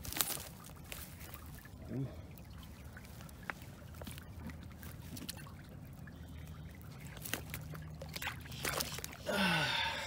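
Water trickling and sloshing, with scattered short knocks and scrapes of a wooden stick as an overturned softshell turtle is pushed and flipped back over into the shallow water. A man's voice sounds briefly near the end.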